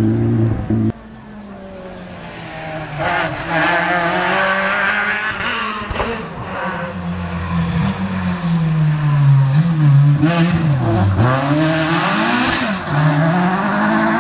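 Rally car engine coming closer and being revved hard, growing louder. Its pitch repeatedly climbs and drops sharply as the driver shifts gears and lifts off. Just before this, a loud sound cuts off abruptly about a second in.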